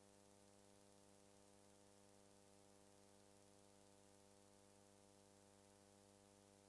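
Near silence: a faint, steady hum and hiss, with no sound from the scene itself.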